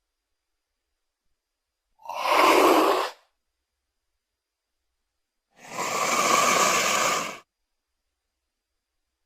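Two breathy, noisy creature sound effects for a Troodon dinosaur: a short one about two seconds in and a longer one near the middle.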